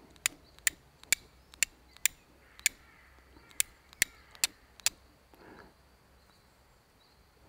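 Carbon-steel fire striker struck down against a flint, about ten sharp scraping clicks roughly two a second with a short pause about three seconds in. A faint rustle of hands on the flint and tinder follows near the end.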